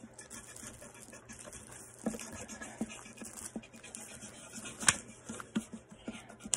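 A pen scratching and rubbing on paper in short strokes while drawing, with a few light taps, the sharpest about five seconds in.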